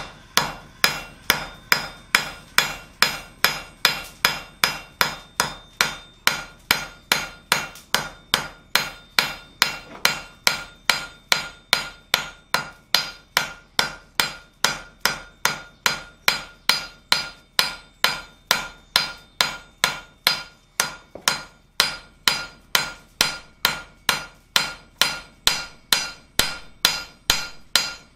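A sharp cross-peen hammer striking glowing-hot steel on an anvil in a steady rhythm of about two and a half blows a second, each blow with a short metallic ring. The smith is texturing the hot steel with peen marks.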